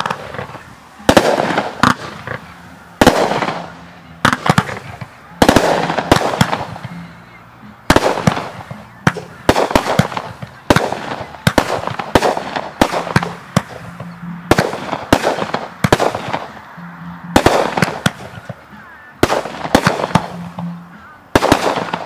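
Aerial fireworks shells bursting one after another, a rapid string of sharp bangs about every second or so, each dying away before the next.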